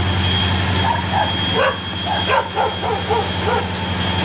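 Steady low drone of CSX diesel freight locomotives passing slowly, with a dog barking in a quick run of about ten short yips from about a second in.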